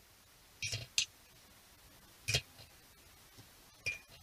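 Steel spoon tapping and clinking lightly against the curd bowl and plate as curd is spooned over fried vadas: four or five faint, separate taps.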